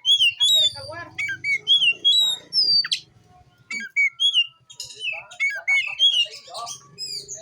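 Oriental magpie-robin (kacer) singing a fast, varied song of clear whistled slurs, repeated notes and chirps, phrase after phrase with brief gaps.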